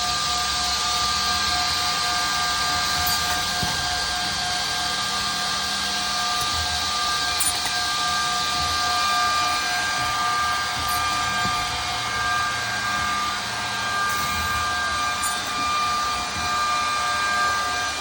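Edge banding machine running steadily: a continuous mechanical hiss with a steady whine of several tones, and a few faint ticks.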